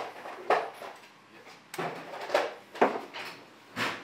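Metal hand tools clanking and clinking on a steel workbench: a socket and extension being picked up and handled, with about six sharp knocks.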